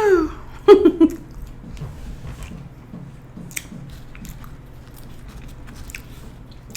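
Close-miked eating: a person biting and chewing food, with soft wet mouth clicks. There is a brief vocal sound near the start.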